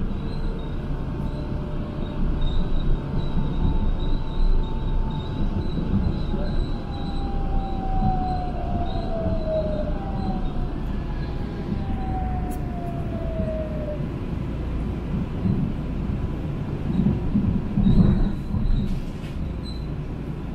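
Inside a Mitsubishi Crystal Mover automated people-mover car in motion: a steady rumble of the running train, with a motor whine that falls in pitch through the middle as it slows to approach a station. A few knocks near the end.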